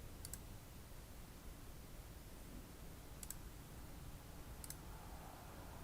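Three faint computer mouse clicks, spaced a second or more apart, over quiet room tone.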